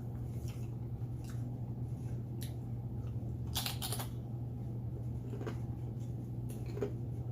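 Eating sounds: scattered short clicks and crunches of chewing and utensils, with a denser cluster about three and a half seconds in, over a steady low hum.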